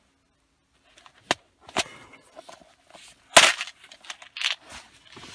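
A clear plastic compartment box of crimp connectors being worked open one-handed: a run of sharp plastic clicks and snaps from the lid catches, the loudest about three and a half seconds in, with the loose connectors rattling in their compartments.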